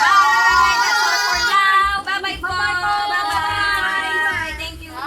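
A high voice singing a melody with music, breaking briefly about two seconds in and fading near the end.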